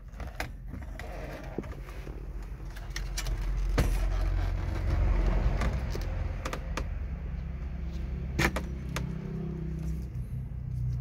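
Clicks and knocks of plastic and metal as a car radio head unit is worked out of the dashboard and its wiring connectors are handled, over a low rumble that swells in the middle and then eases.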